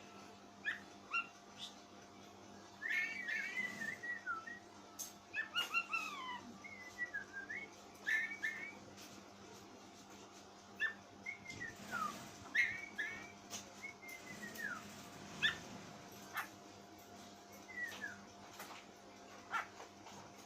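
Oriental magpie-robin giving odd, irregular strings of short whistled and squeaky notes that slide up and down, many falling, mixed with sharp clicks. The notes come thickest in the first half and more sparsely later.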